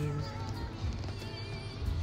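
Background music with held low notes and a wavering melody line.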